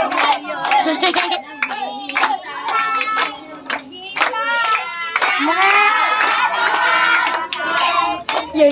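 A group of children and women singing together, with hands clapping along.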